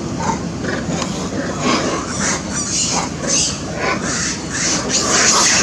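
A troop of long-tailed macaques squealing and screeching in short high calls, coming faster and louder toward the end, over a steady background rumble.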